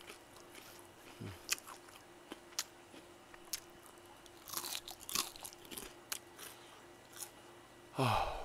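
Close-miked biting and chewing of crispy fried chicken: scattered crunches of the batter and wet mouth clicks. A short voiced sound from the eater comes near the end.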